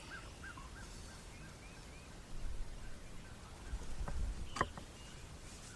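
Series of soft turkey yelps, short rising-and-falling notes at about three a second, fading out within the first two seconds. Then a low rumble and one sharp click a little past the middle.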